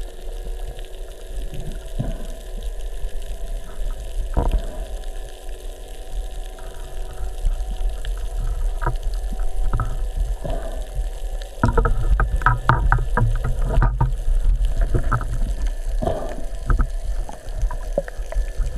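Underwater rumble of water moving past a camera housing on a speargun, with a run of sharp clicks and knocks about twelve seconds in and a few more a little later.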